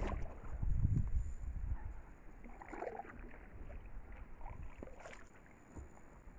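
Quiet ambience from a kayak drifting on still water: a low wind rumble on the microphone through the first two seconds, then a few faint knocks.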